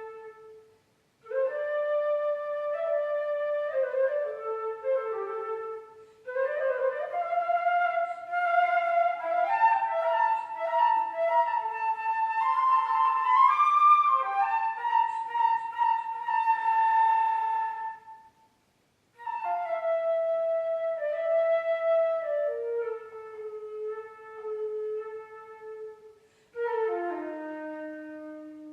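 Unaccompanied concert flute playing a slow melody in phrases separated by brief pauses, with some passages of quicker notes in the middle. It ends on a long low note.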